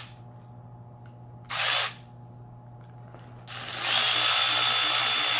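Milwaukee M12 Fuel 3/8-inch brushless cordless ratchet running free with no load, its motor whining in trigger bursts. There is a short burst about 1.5 s in, then a longer run that builds up from about 3.5 s in and holds steady.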